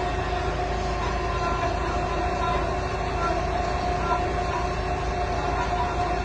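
Amada H-600 horizontal bandsaw running, a steady machine hum with a constant whine of several pitches that stays unchanged throughout.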